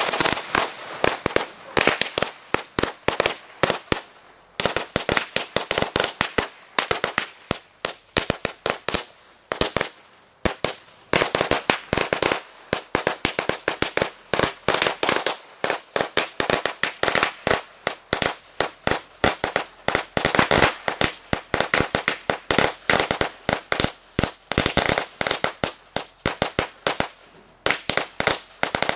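A long roll of firecrackers going off in a rapid string of sharp bangs, many a second, with brief lulls about four seconds in, about ten seconds in and near the end.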